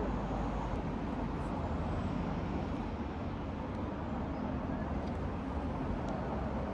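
Steady low rumble of street traffic, an even, unbroken background noise.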